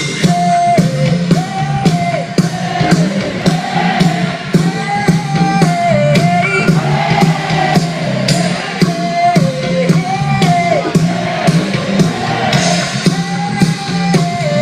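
Live pop band with a lead vocal singing a melody over a steady drum beat, bass and guitar.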